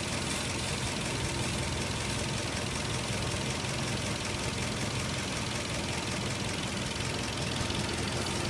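Nissan 240SX engine idling steadily with a steady hiss over it. The engine has a vacuum leak at a metal fitting by the intake manifold.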